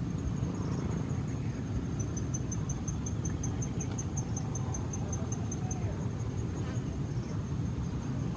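Insect chirping outdoors: a steady high, thin tone, with a fast run of sharp pulses at about five a second for a few seconds in the middle, over a steady low rumble.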